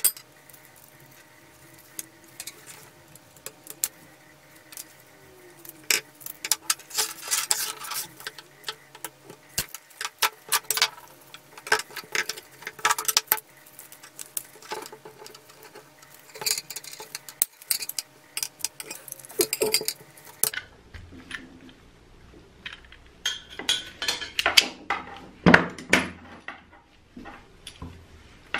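Small brass fittings from a 1955 Muratori sprayer's nozzle clinking and scraping against each other as they are handled and unscrewed, with scattered clicks and spells of rubbing as a fitting is wiped with a cloth.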